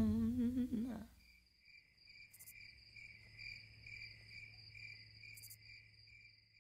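A held sung note with vibrato ends the song and fades out within the first second. Then faint crickets chirp steadily, about three chirps a second, over a low hum.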